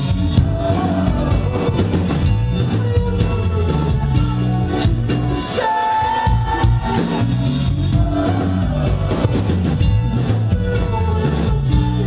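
Live rock band playing loudly, with a steady drum beat, heavy bass and layered guitars and keyboards.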